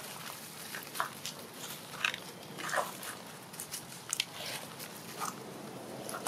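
Dry leaf litter crackling and rustling in short scattered sounds as macaques scuffle and move over it.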